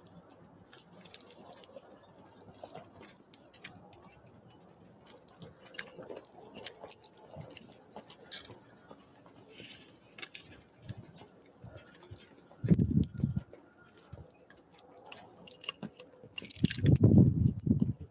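Small wild birds at a feeder, with light scattered pecking and tapping clicks. There are two heavy low bumps, a brief one about two-thirds of the way in and a longer run of knocks near the end.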